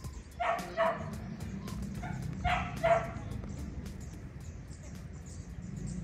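A dog barking: two quick barks about half a second in, then two more about two seconds later.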